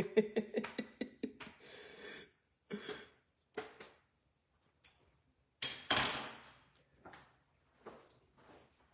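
Kitchen knife slicing a banana over an aluminium foil pan, a quick run of small clicks in the first second or so. A few light knocks follow, then a louder clatter about six seconds in as the knife is set down on the stone countertop.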